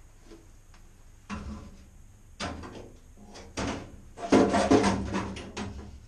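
Metal top section of a Utica gas boiler being set back onto the boiler and shifted into place: a few separate clunks, then a louder, longer stretch of scraping and knocking about four seconds in.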